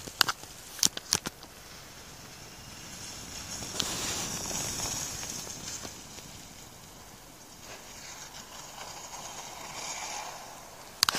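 A skier going past at high speed, the skis hissing over the snow: the sound swells to its loudest a few seconds in and fades away, with a weaker hiss again near the end. A few sharp clicks in the first second.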